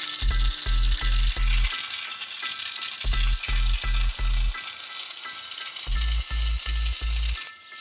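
Razorcut 45CNC plasma cutter's machine torch hissing steadily as it cuts steel plate, the arc stopping near the end. Electronic background music with a heavy bass beat plays over it, louder than the cut.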